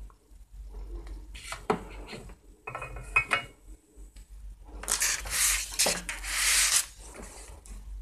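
Handling noise from a handheld clamp meter and its test leads being set down on a tabletop and its buttons pressed: scattered plastic clicks and taps, then a loud rustling rub for about two seconds past the middle.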